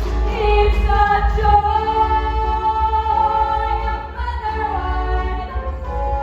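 Music with singing: a melody of held, sung notes.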